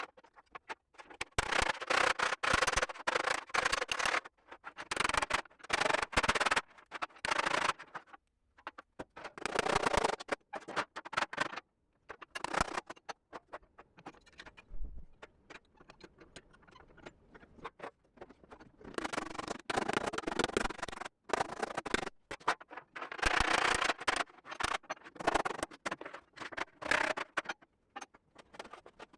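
Hammer and dolly shaping a sheet-steel floor patch: runs of rapid metal-on-metal blows lasting a few seconds each, with pauses between them and a longer quiet stretch about midway.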